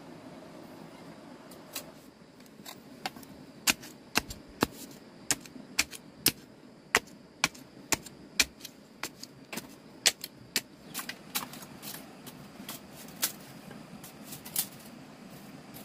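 A run of irregular sharp clicks and taps, one to three a second, starting about two seconds in, over a faint steady background noise.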